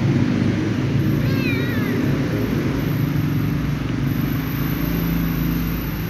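A ginger kitten meows once, a short wavering call about a second in, over a steady low rumble.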